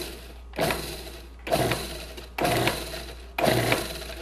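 Food processor pulsed in short bursts about once a second, its blade spinning through graham cracker crumbs mixed with melted butter and sugar for a cheesecake crust.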